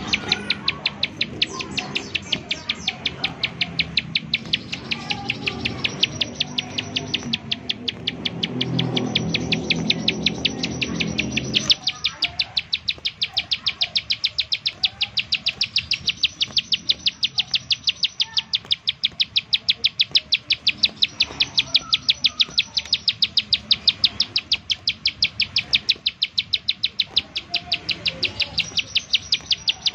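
Plain prinia (ciblek sawah) giving its 'nembak' call: a rapid, even run of sharp, high repeated notes that goes on without a break. A lower noise sits under it and cuts off suddenly about twelve seconds in.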